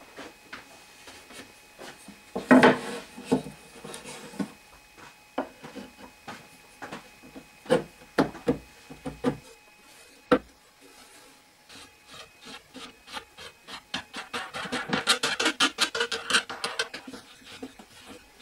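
Wooden rails being handled on a threaded-rod planer jig: scattered wood-on-wood knocks, clunks and sliding, loudest about two and a half seconds in. Near the end comes a fast run of ticks and scraping lasting a few seconds, as hands work at one of the threaded rods.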